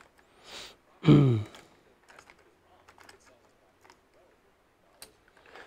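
A short breath and a brief voiced 'hmm', then a series of faint, irregular small clicks and taps from small parts being handled on a workbench.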